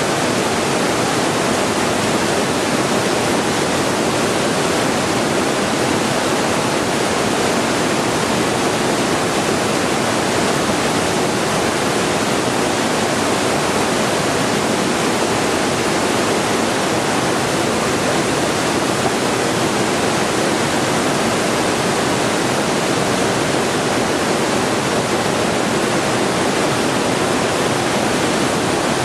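Steady white noise used as a baby sleep aid: a constant, even rushing hiss that never changes in level.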